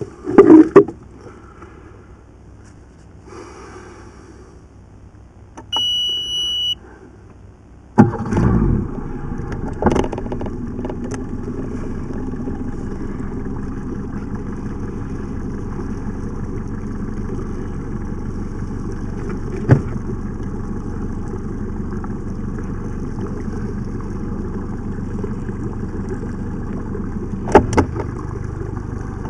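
A loud thump near the start, then a short steady beep about six seconds in as the boat's ignition is switched on, and about eight seconds in the inflatable boat's engine starts and settles into a steady run, with a few sharp knocks over it.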